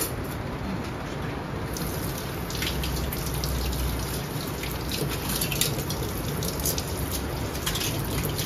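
Kitchen faucet running into a stainless steel sink while hands are washed under the stream, with irregular splashing. The water comes on about two seconds in.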